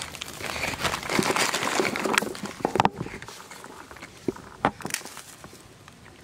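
Crinkly plastic biscuit wrapper rustling and crackling as a hand breaks up the biscuits inside it, loudest in the first three seconds. A few sharp snaps follow from rice stalks being pulled.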